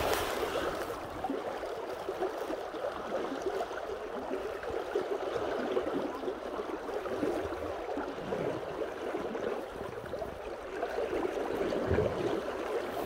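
River water flowing steadily around a boat, an even watery noise with no single events standing out.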